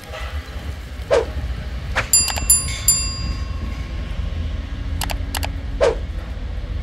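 Construction-site ambience: a steady low rumble with scattered metal knocks and clanks. A cluster of strikes between about two and three seconds in rings on briefly like struck steel.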